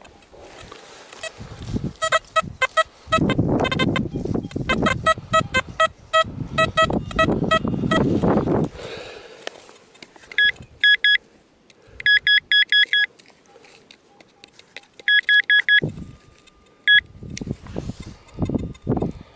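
A digging tool chopping and scraping into dry, stony soil while a metal detector gives short repeated beeps. After the digging stops, the detector gives several quick runs of higher beeps as the target is sought in the loosened soil, with a few soft thuds near the end.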